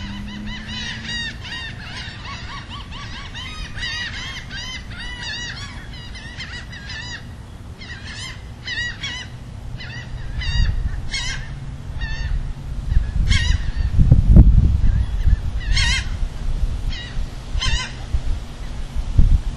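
Birds calling: a dense run of quick chirps and whistles, then harsh, honking calls at intervals over a low rumble that grows loud about two-thirds of the way through.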